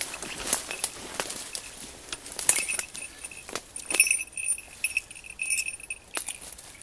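A goshawk's falconry bells jingle on and off as the hawk shifts on its kill, with crackling and rustling of dry leaf litter.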